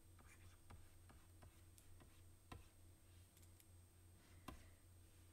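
Faint, irregular clicks and taps of a stylus on a drawing tablet, about two a second, over a faint steady hum.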